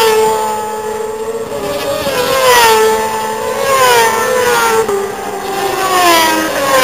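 Superbike racing motorcycles at high revs riding past on the circuit, several engine notes overlapping, each climbing and dropping in pitch several times.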